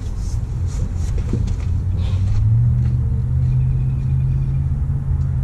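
A truck's diesel engine idling with a steady low rumble; its note steps up slightly about two and a half seconds in.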